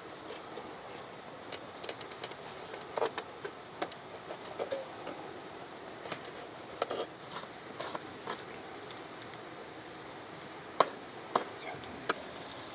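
A few short, sharp clicks and knocks, like utensils or dishes being handled, over a steady background hiss.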